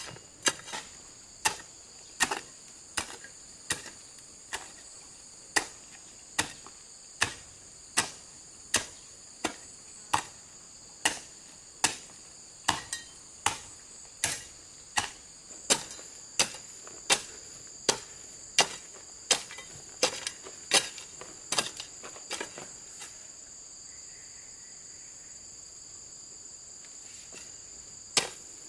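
A hoe chopping into stony soil in steady strokes, a little more than one strike a second, pausing about 22 seconds in and starting again near the end. Insects chirr steadily and high-pitched underneath.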